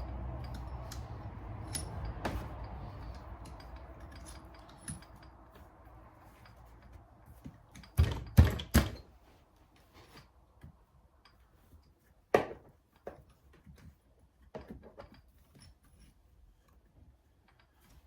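Metal tools and engine parts being handled: scattered clicks and clinks, with a cluster of louder clanks about eight seconds in and another knock about twelve seconds in. A low hum fades away over the first few seconds.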